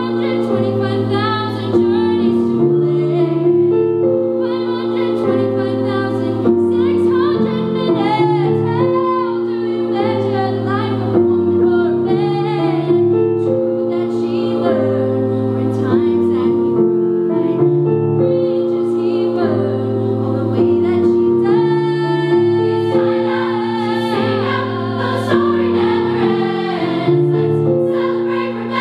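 Girls' choir singing in parts, accompanied by piano.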